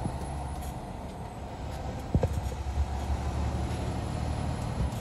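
Steady low rumble of engine and road noise heard inside the cabin of a moving vehicle, with a few short knocks about two seconds in.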